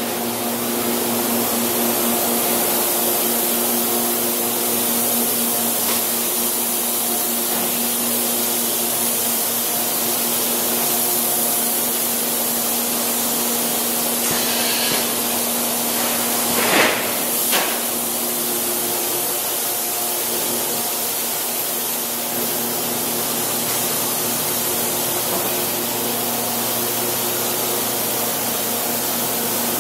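Steady hum and hiss of industrial machinery running in a large plant building. About halfway through there is a short hiss, then two knocks in quick succession.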